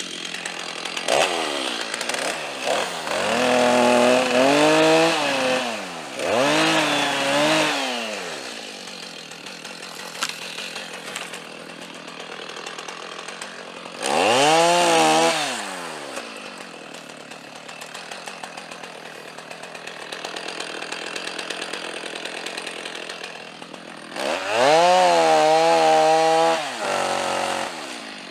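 Two-stroke chainsaw revved up about five times, each time climbing to full throttle, holding briefly and dropping back to idle.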